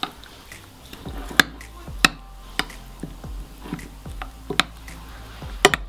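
Metal spoon stirring a thick sour cream and chopped parsley mixture in a glass bowl, with soft squelching and a sharp clink against the glass every second or so.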